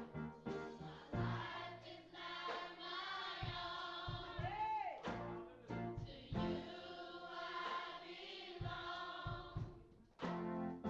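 Church choir singing a gospel song, with a low bass beat underneath.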